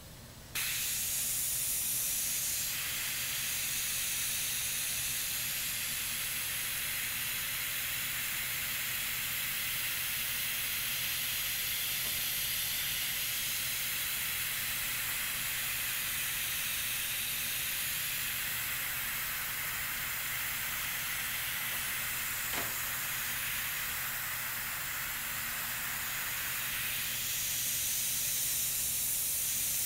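Iwata Revolution BCR double-action, siphon-feed airbrush hissing steadily as it sprays paint, with a low steady hum underneath. The hiss starts about half a second in and grows a little fuller near the end, with one faint click about two thirds of the way through.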